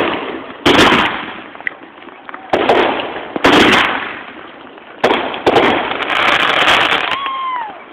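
Aerial fireworks bursting, heard through a cell phone's microphone: about six sharp bangs at uneven gaps, each followed by a crackle that fades away.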